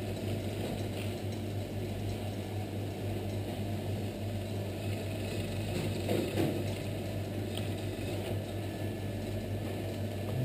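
Pasta machine turning, its rollers and gears running as a sheet of pasta dough is fed through, over a steady low hum.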